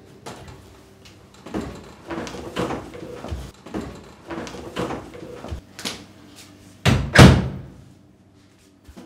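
Metal-framed glass kitchen cupboard doors being opened and shut: a run of knocks and rattles, then a loud slam about seven seconds in.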